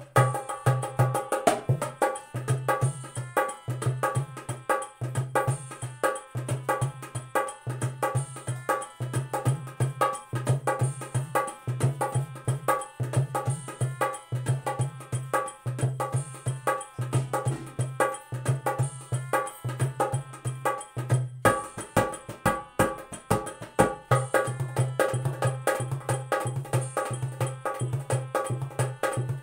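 Dholak playing a medium-fast keharwa rhythm: sharp treble-head strokes over regular booming strokes on the bass head. The bass strokes drop out for a couple of seconds about two-thirds of the way through, then resume.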